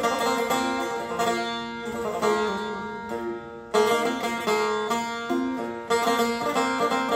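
A Persian setar built by Hamid Sokooti, plucked in a melody of ringing single notes. Louder strummed strokes come about halfway through and again near the end.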